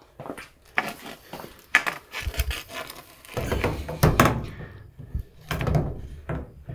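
A string of knocks, clicks and rubbing from objects being handled, louder and busier from about halfway through, with one heavier knock about four seconds in.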